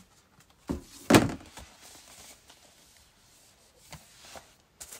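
A cardboard shoe box being handled: two thumps about a second in, the second much louder, then faint light knocks and rubbing.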